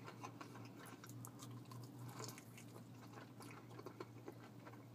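A person chewing a mouthful of crispy fried chicken close to the microphone: faint, irregular wet clicks and small crunches, over a low steady hum.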